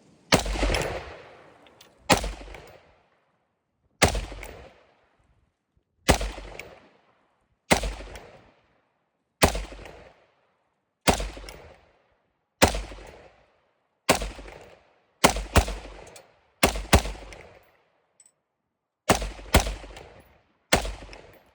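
Draco 7.62×39 AK-pattern pistol fired in slow single shots, about one every one and a half to two seconds, with a few quick doubles, around seventeen shots in all; each crack is loud with a short echoing tail.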